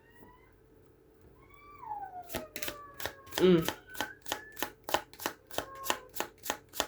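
Tarot cards being shuffled by hand: a quick run of crisp card snaps, about three to four a second. It starts about two seconds in and goes on to the end.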